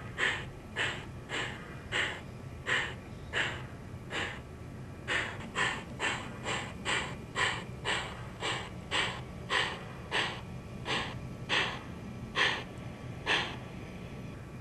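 Steam-locomotive chuff sound effects from the onboard sound system of an MTH HO Dreyfuss Hudson model, a steady beat of puffs about one every half to three-quarters of a second over a faint low hum. The beat breaks off briefly about four seconds in, and the puffs come further apart near the end.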